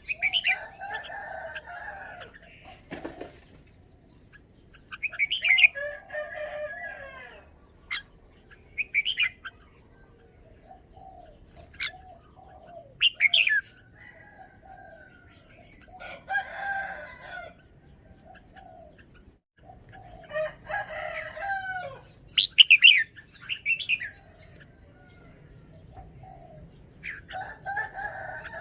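Red-whiskered bulbul singing: short warbled phrases of bright whistled notes every few seconds, with pauses between them. A few sharp clicks fall between the phrases.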